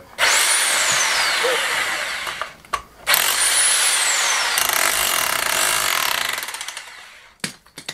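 Electric demolition hammer with a chisel bit chipping render off a stone wall, run in two bursts of about two and four seconds. Each burst opens with a high whine that climbs briefly and then falls, and the second burst trails off into rapid ticks.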